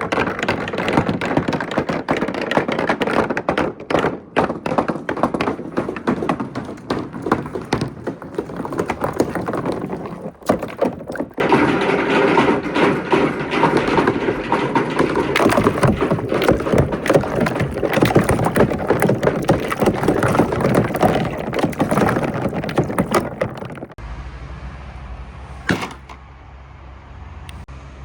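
Many glass marbles rolling and clacking down a water marble run, a dense rattle of knocks over running water. It thins out about 24 seconds in to a few scattered clicks.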